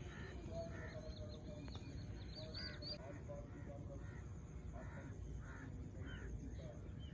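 Birds calling: irregular short, repeated calls with a few higher chirps in between, over a faint steady high-pitched tone.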